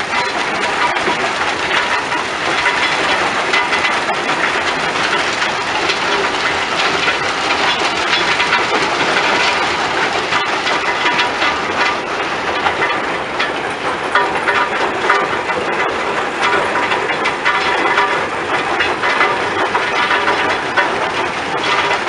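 Stone-crushing plant running: a cone crusher and belt conveyors, with a steady, dense clatter of crushed rock.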